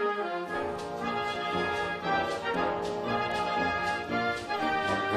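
Background instrumental music with brass, orchestral in character.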